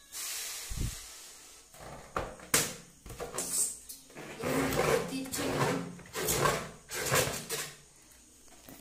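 Breath blown into a rubber balloon for about the first second, then the inflated balloon being handled: an irregular string of rubbing and knocking sounds.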